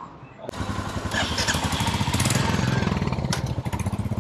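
Motorcycle engine running with a fast, even low pulse as the bike rolls off at low speed; it starts abruptly about half a second in.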